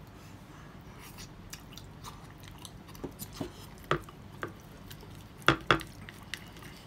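Wooden chopsticks tapping and scraping against a ceramic gratin dish while working sticky melted cheese and mochi, mixed with chewing. It comes as a scatter of short sharp clicks, with two louder ones close together late on.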